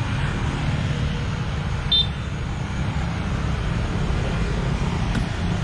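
Steady traffic noise from motorbikes and cars on a city road, a constant low rumble. A short high chirp sounds about two seconds in.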